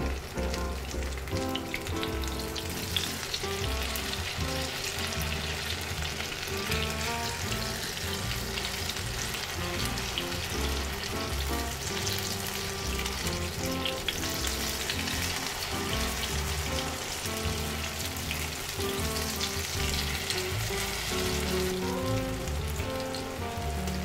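Zucchini and carrot pancakes frying in shallow oil in a nonstick pan: a steady sizzle with fine crackling, over background music.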